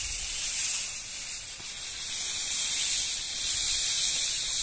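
Steady high-pitched hiss of outdoor background noise, with no distinct events.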